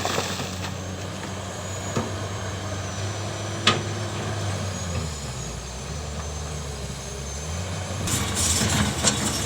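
Hydraulic excavator diesel engine running steadily, with one sharp clack a little under four seconds in. The engine note drops for a couple of seconds midway, and a louder, noisier sound comes in near the end.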